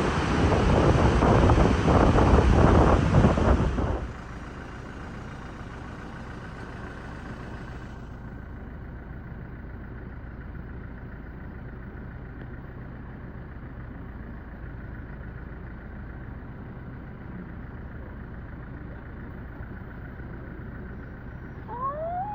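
Loud rushing noise of wind and water spray for about four seconds, cutting off suddenly to a steady low vehicle hum. A few short rising chirps come near the end.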